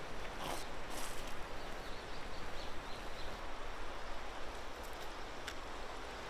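Outdoor riverbank ambience: a steady haze of flowing river water and breeze, with faint bird chirps and a couple of sharp clicks in the first second or so.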